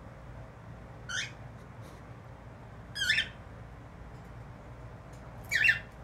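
Cockatiel giving three short rising squawking calls, about two seconds apart, the last the loudest.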